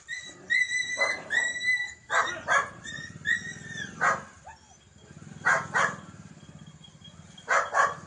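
A dog barking repeatedly, mostly in quick double barks, with two high, drawn-out yelps at the start. A motorcycle engine runs low underneath.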